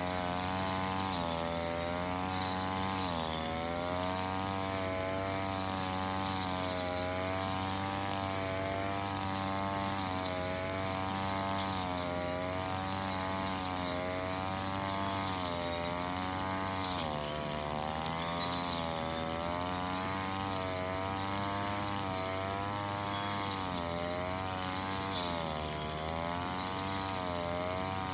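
Engine-driven brush cutter running while mowing grass, its engine pitch wavering and dipping several times, with scattered sharp ticks.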